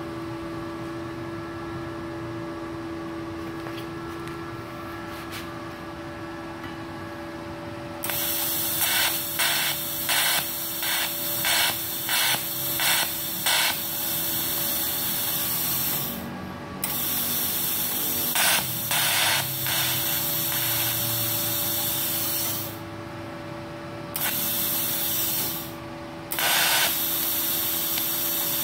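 TIG welding arc from a MultiPro TIG 200A-SA inverter welder running at about 58 amps. A steady hum comes first; the arc strikes about a third of the way in and burns with a loud, even hiss, pulsing about twice a second for several seconds. It stops briefly three times and restarts each time.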